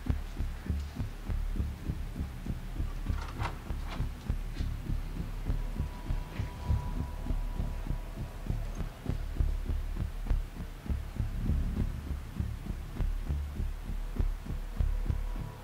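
Low, heartbeat-like throbbing pulse with a hum under it, going fast and steady: the tense underscore of a TV drama's stealth scene.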